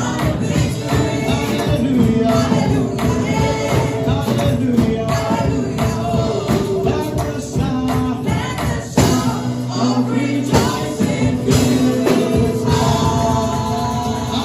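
Lively gospel praise music: a group of voices singing over a band with tambourine beating along.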